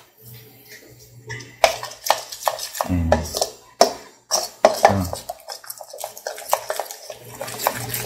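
Metal spoon stirring thick frying batter in a stainless steel bowl, clinking and scraping against the bowl's sides in quick, irregular strokes.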